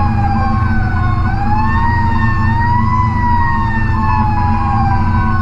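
A fire truck's siren wailing, heard from inside the cab. Its tone rises, peaks a few seconds in and slowly winds down. A steady beep pulses about one and a half times a second, and the truck's Caterpillar C12 diesel drones underneath.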